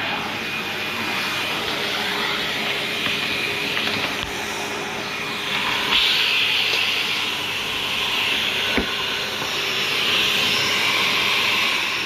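Taski Vento 8 commercial canister vacuum cleaner running while vacuuming a rug: a steady rushing hiss of motor and airflow. The hiss swells about halfway through and again near the end, with a single sharp click late on.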